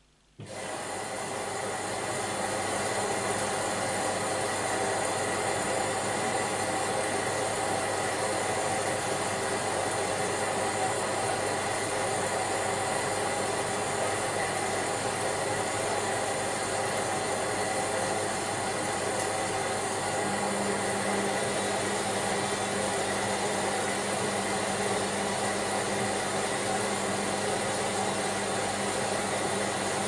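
AEG Lavamat Protex L72475FL washing machine running a stage of its wash programme: a loud, steady rushing noise with a hum, switching on abruptly at the start. A lower hum joins about two-thirds of the way through.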